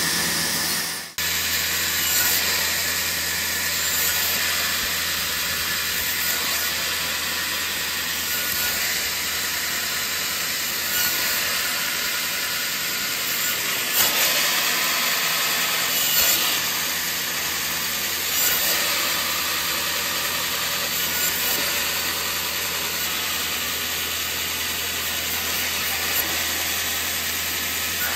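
Band saw running and cutting thin wooden strips fed through a spring-loaded wooden template: a steady motor hum under the hiss of the blade in the wood. There is a brief break about a second in.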